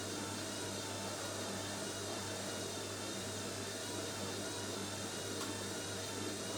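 Household automatic washing machine draining: its drain pump runs with a steady hum and a constant wash of water noise.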